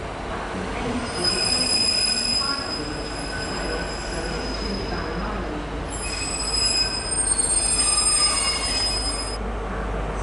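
Steel wheels of a Pacer diesel railbus squealing as it moves slowly round a tight curve: high-pitched squeals in two spells, the second louder, over a low rumble.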